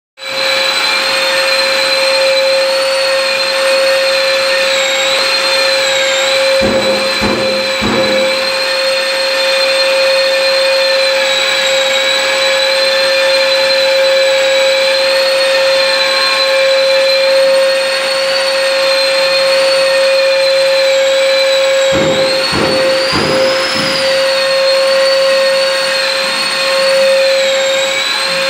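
Long-reach drywall sander sanding a plastered wall, with its hose-connected dust-extraction vacuum running with a steady high whine that wavers slightly in pitch. A few short knocks come about seven seconds in and again around twenty-two seconds.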